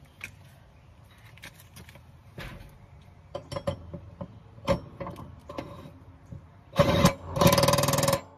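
Metal clinks and knocks as a mower blade is handled on its spindle, then two bursts of an impact wrench driving the blade bolt tight near the end, a short one and then a rattling one of about a second.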